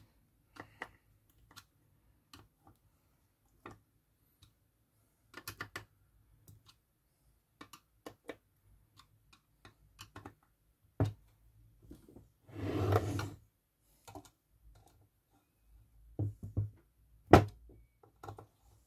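Hand reassembly of a soldering station's metal case: scattered small clicks and taps of a screwdriver, screws and panel parts. About two-thirds through there is a second-long burst of rustling noise, and near the end a sharp knock.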